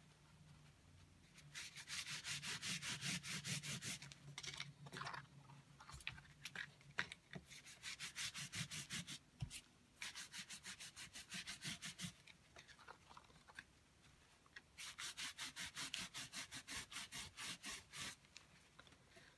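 Paper tissue rubbed briskly back and forth over embossed white card, buffing gold glitter paste onto the raised pattern. Three spells of quick, even rubbing strokes, several a second, with short pauses between.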